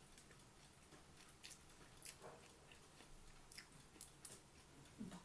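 Faint chewing, with a few soft clicks and crunches scattered through: a person eating.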